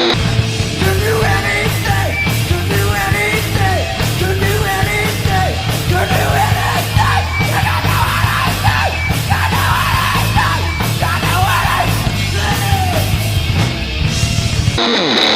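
Full punk/grunge rock band playing, with distorted guitar, bass and drums under yelled singing. The band cuts off abruptly near the end, giving way to a lone electric guitar.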